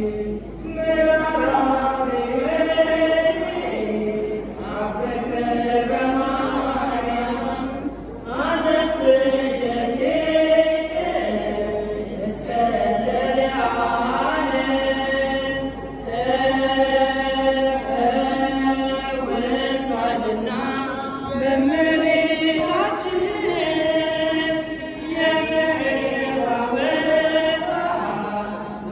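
Women's choir singing an Amharic hymn to Mary (mezmur) in unison chant, unaccompanied, in long held melodic lines with brief breaks between phrases.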